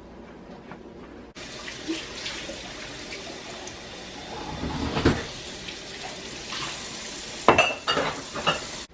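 Water running from a faucet into a sink, starting suddenly about a second in. A few clinks and knocks of dishes or pots in the sink come in the middle and near the end.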